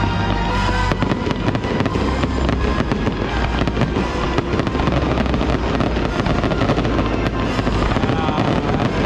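Fireworks going off in quick succession over loud music played through the show's sound system: a dense crackle of many short bangs on top of the music with a steady low rumble.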